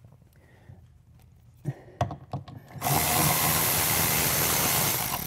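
Cordless drill backing a lag bolt out of a wooden shipping skid, running steadily for about two and a half seconds in the second half, after a couple of short knocks.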